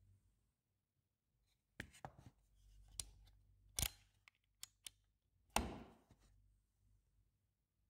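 Sharp plastic-and-metal clicks and snaps from the adjustment parts of a Festool Domino XL DF 700 joiner being set by hand, about seven in an irregular string, the loudest about three-quarters of the way through.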